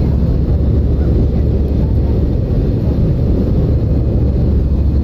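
Steady, low-pitched cabin noise of an Airbus airliner climbing after takeoff: engine and airflow noise heard from a window seat over the wing.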